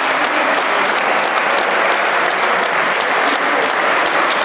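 Audience applauding: a dense, steady clapping of many hands that keeps on without a break.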